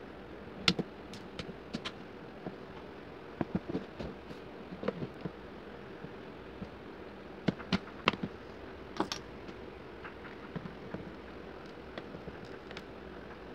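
Plastic opening pick working around the edge of a Vivo Y93 smartphone's back casing: scattered sharp plastic clicks and ticks at irregular intervals as the cover is pried loose, over a faint steady hum.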